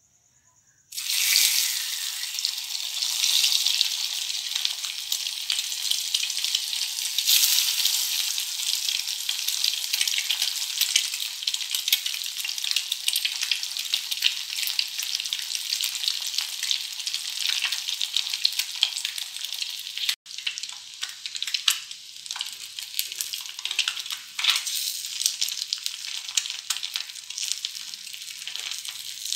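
Whole peeled boiled eggs frying in hot oil in a steel kadhai. The sizzle starts suddenly about a second in, as the eggs go into the oil, and goes on loudly with crackling spits. In the later part a metal spatula scrapes and turns the eggs in the pan, adding clicks over the sizzle.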